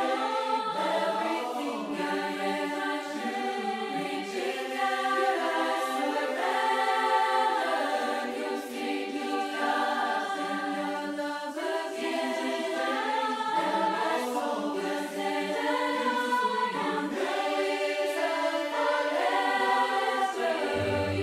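A church congregation singing a hymn a cappella: several unaccompanied voices sing together in harmony, holding and moving between sustained notes.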